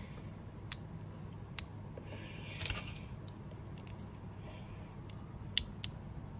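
Small plastic building bricks being handled and pressed together: a few sharp clicks and a short scrape, the loudest two clicks close together near the end.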